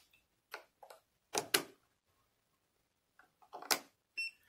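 AAA alkaline batteries being pressed into the plastic battery holder of a smart lock cylinder, giving a series of short sharp clicks and knocks in small clusters. A brief high tone sounds near the end.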